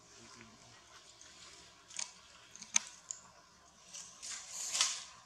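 Dry leaf litter crackling and rustling in short scattered bursts, about five of them, the loudest near the end.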